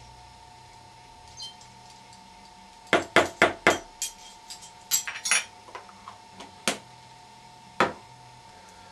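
A metal teaspoon tapping and clinking against containers as yeast nutrient is spooned out. A quick run of four sharp taps comes about three seconds in, then lighter scattered clinks, then two single taps later on.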